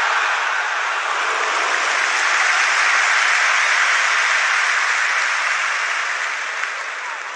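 Steady roar of crowd noise, swelling around the middle and fading toward the end.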